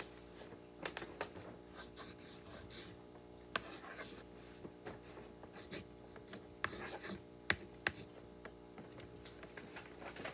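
Paper being handled and written on at a table: soft rustling and scraping with a scatter of small sharp clicks and taps, over a steady faint hum.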